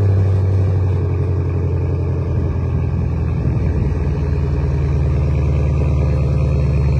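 Vehicle engine running steadily with a loud, deep rumble, its tone lifting slightly a little past halfway.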